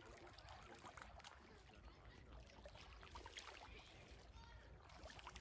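Near silence: faint lakeshore ambience, with gentle water sounds, scattered light ticks and a low rumble.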